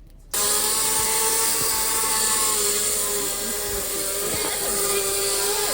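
A small engine running steadily at an even speed, cutting in sharply about a third of a second in.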